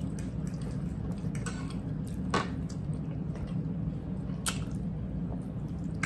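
Two people eating at a table: chewing and wet mouth sounds, with a few sharp clicks of knives and forks against plates, over a steady low hum.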